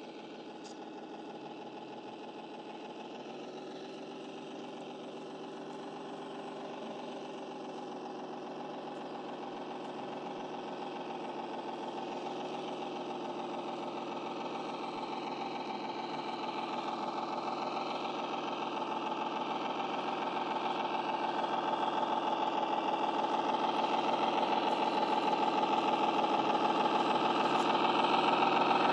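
Six-wheeled RC crawler truck running, a steady mechanical drone that grows gradually louder as the truck drives closer over rocky ground.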